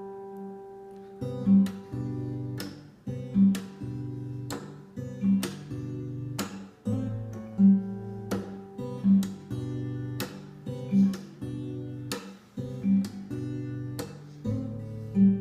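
Acoustic guitar: a chord rings out, then about a second in strummed chords start in a steady rhythm, roughly one strum a second.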